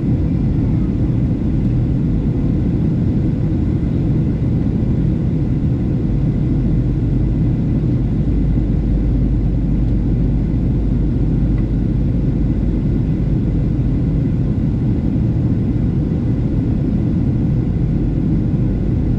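Steady cabin noise inside a Boeing 737-700 climbing out: its CFM56-7B turbofan engines running at climb power with rushing airflow, a deep even rumble with a faint steady tone above it.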